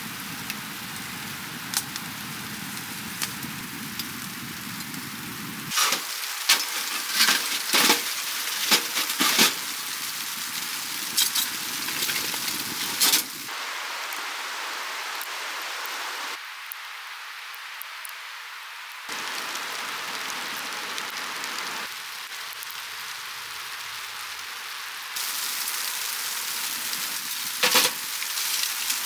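Wood burning in a tent stove: a steady hiss with clusters of sharp crackles and pops. The hiss changes character abruptly several times.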